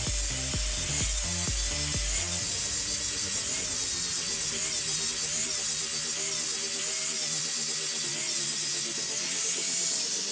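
Background music with a low beat that drops out about two seconds in, over a steady high hiss and a wavering whine from a tool working on the metal parts.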